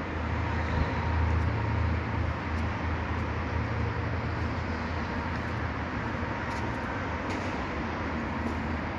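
Steady low rumbling noise with an even hiss above it, unchanging throughout.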